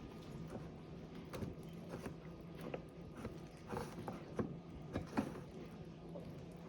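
Soft, scattered clicks and taps of food and utensils being handled in a bowl, over a steady low hum.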